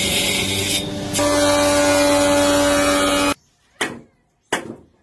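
A workshop power tool running with a steady hum, cutting off abruptly about two-thirds of the way in; then two sharp knocks, like hammer blows on wood, about two-thirds of a second apart.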